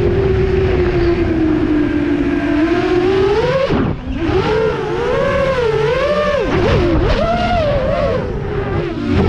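FPV quadcopter's brushless motors whining. The pitch is steady for about three seconds, dips sharply as the throttle is cut about four seconds in, then swings up and down with quick throttle changes.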